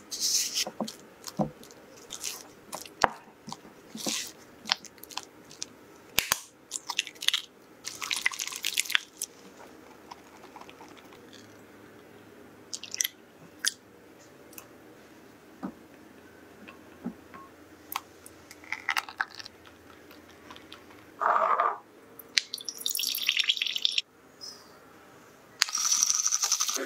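Close-up kitchen prep sounds: a silicone spatula mixing cream cheese and scraping around a glass bowl, with scattered clinks and taps of utensils. About a second before the end, a handheld electric milk frother starts whirring in a glass.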